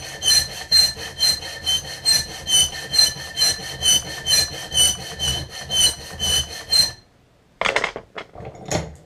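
Small hand file cutting into a very hard bandsaw-steel knife blade in quick, even strokes, about two and a half a second, each stroke with a high metallic ring. The filing stops about seven seconds in, followed by a few sharp knocks.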